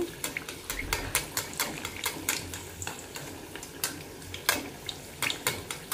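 Hot oil crackling and popping around stuffed whole-wheat dough patties deep-frying at low-to-medium heat in an aluminium kadhai: many quick, irregular pops.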